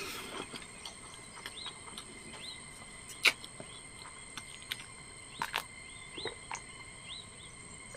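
Quiet eating sounds of a man eating rice and noodle soup by hand: a few sharp mouth clicks and smacks, the loudest about three and five and a half seconds in, over faint, repeated short high chirps.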